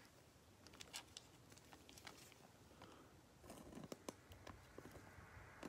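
Faint crinkles and small clicks of a soft plastic sleeve handled by gloved fingers as a trading card is slid into it, with a short cluster of crackles about three and a half seconds in.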